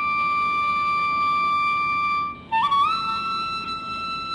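Background music: a long held note that breaks off about two and a half seconds in, then slides up to a higher held note.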